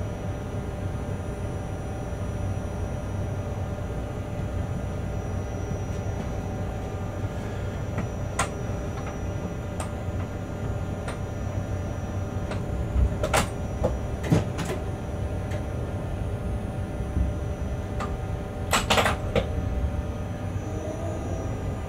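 Freight locomotive cab: a steady rumble and mechanical hum with constant whining tones as the train rolls slowly. Sharp clacks come now and then, a cluster of them a little past halfway and another pair near the end.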